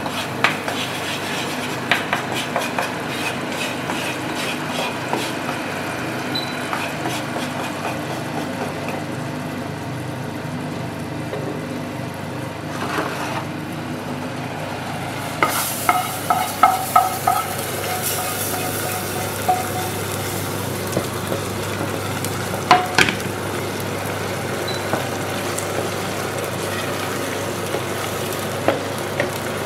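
Flour frying in oil in a non-stick pan, sizzling steadily while a wooden spatula stirs and scrapes it. About halfway through comes a quick run of ringing knocks on the metal saucepan, with one sharp knock a few seconds later.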